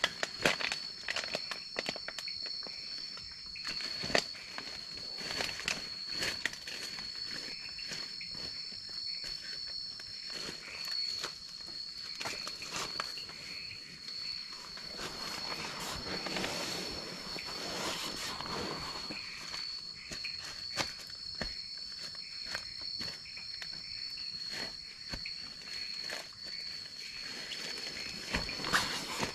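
A steady, high-pitched drone of night insects, with a second, slightly higher tone coming and going above it. Over it come close rustling and scattered knocks as someone handles a sleeping bag and lies down inside a tent.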